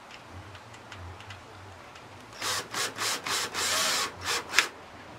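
Cordless drill driving a machine screw through the plastic bucket rim. A faint low hum comes first, then from about two and a half seconds in a run of short rasping bursts, about three a second, as the screw is run in with trigger pulses and pulls snug against the plastic.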